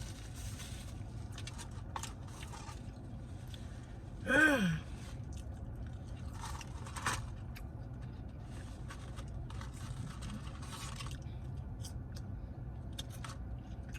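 A person chewing and crunching food close to the microphone, with many small clicks and scrapes of mouth and wrapper. About four seconds in comes one short hum of the voice, the loudest sound.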